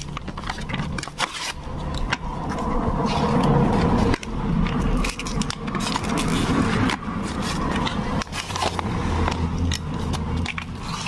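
Paper sleeve and plastic bag around a set of new motorcycle clutch plates being torn open and crinkled by hand, many small crackles. A low engine hum runs underneath and swells in the middle.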